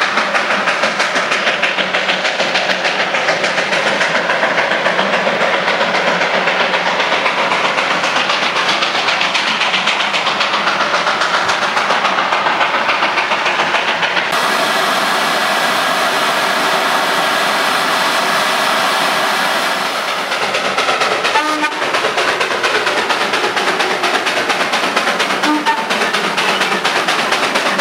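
Darjeeling Himalayan Railway B-class saddle-tank steam locomotive working hard, with a fast, steady run of exhaust chuffs. About halfway through, a long steady whistle sounds for several seconds.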